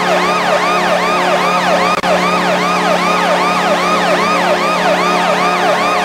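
Ice hockey goal horn: a steady low horn tone with a siren layered over it, wailing up and falling back about three times a second. The sound dips for a moment about two seconds in.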